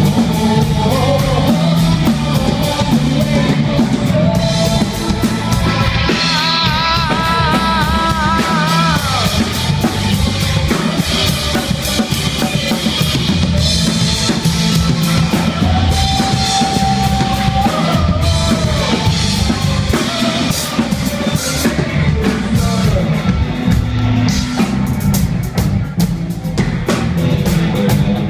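Live rock band playing loud: drum kit, electric guitar and bass guitar under a male lead singer, with a long held note about two-thirds of the way through.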